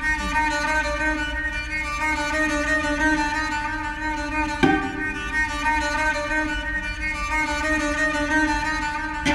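Solo cello music built from looped layers: held bowed notes stacked into a sustained chord, with a sharp new note entering about halfway through.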